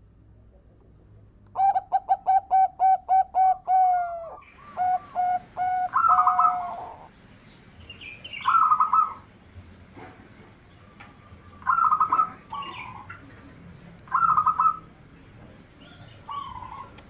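Zebra dove (perkutut) cooing: a quick run of about ten short notes, then longer rolling coos, followed by several separate coo phrases a couple of seconds apart.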